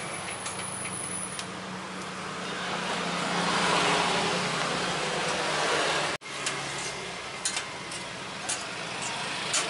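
Steady street traffic noise with a low engine hum, swelling as a vehicle passes in the middle, then a brief dropout about six seconds in. A few sharp clicks follow in the last few seconds.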